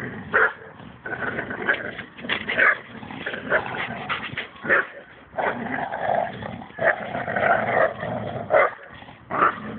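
Dogs growling and barking in rough play while wrestling and tugging on a toy. Short sharp barks come every second or so, with longer stretches of growling between them.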